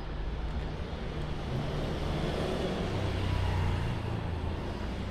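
Street traffic: a motor vehicle passing, its low engine hum swelling to a peak a little after the middle and then easing off.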